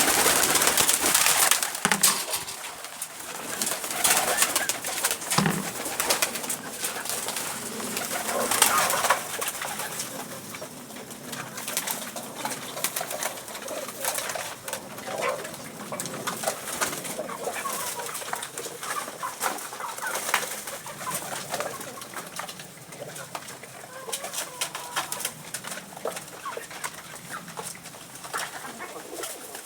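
Domestic pigeons cooing, over a dense patter of short clicks and flutters, busier in the first ten seconds or so.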